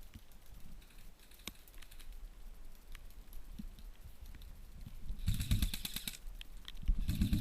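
Two rapid full-auto bursts from an airsoft electric gun, each about a second long, starting about five seconds in. Before them there is only faint scattered ticking.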